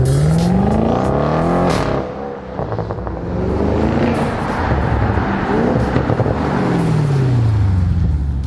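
Audi RS6 Avant's twin-turbo 4.0 V8, running with downpipes and no catalytic converters, accelerating hard: the revs climb twice, with a few sharp exhaust cracks about two seconds in, then fall away steadily near the end.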